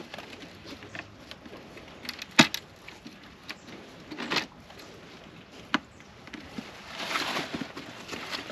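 A few sharp knocks and clicks, the loudest about two and a half seconds in, with a short scraping stretch near the end: a metal bank stick being worked in between rocks.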